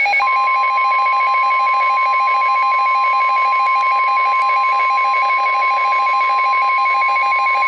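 NOAA Weather Radio warning alarm tone played through a Midland WR-300 weather radio: a loud, steady high tone of about 1,000 Hz held without a break, with a fast beeping alert sounding over it.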